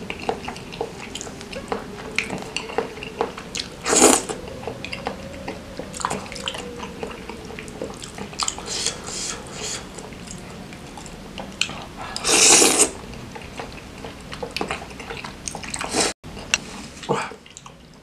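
Close-miked eating of spicy seblak noodles in broth: wet chewing and lip smacks with small clicks, and two loud slurps, about 4 s in and again near 12 s.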